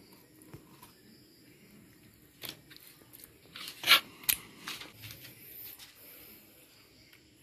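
A knife and raw fish fillets being handled on a plastic cutting board: a few short scrapes and taps, the loudest two close together about four seconds in.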